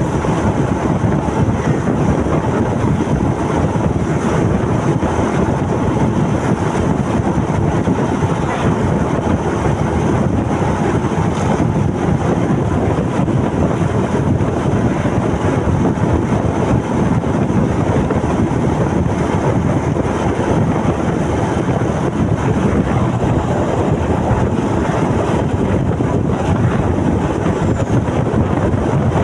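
Steady wind noise on the microphone of a moving motorcycle, mixed with road and engine noise.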